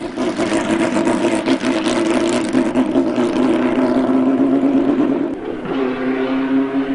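1967 Vollstedt 67B Indy race car engine running hard under way, its note wavering with the throttle. The pitch dips slightly about five and a half seconds in, then holds steady.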